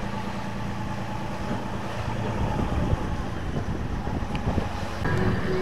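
Fishing boat's engine running steadily under way, with wind buffeting the microphone. About five seconds in the engine note gets louder and higher tones come in.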